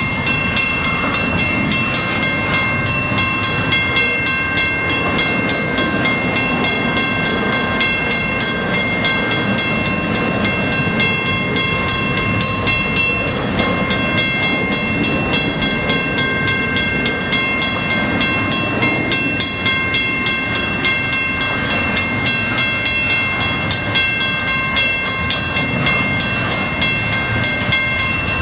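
Intermodal freight train rolling past at a grade crossing: cars rumbling and clattering over the rails with a regular rhythm of wheel clicks, over a steady ringing from the crossing signal's bell.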